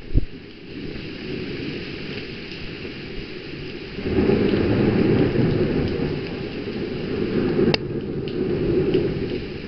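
Torrential thunderstorm rain hissing steadily, with a long low rumble of thunder that sets in about four seconds in and rolls on for several seconds. A single sharp click comes near the end.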